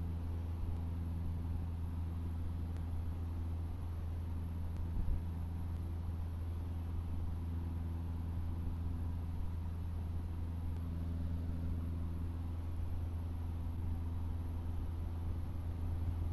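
Cessna 152's four-cylinder Lycoming O-235 engine and propeller running steadily, a low, even drone heard from inside the cabin.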